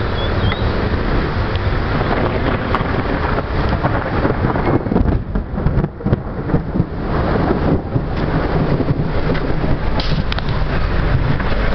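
Floodwater rushing along a street: a loud, steady roar of noise, thinning briefly around five to eight seconds in.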